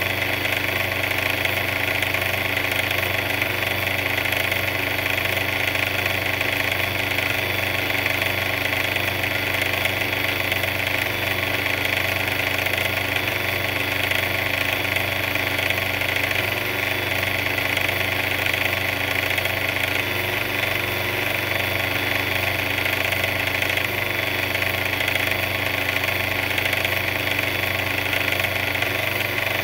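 A mixer's motor running steadily, an even hum that does not change.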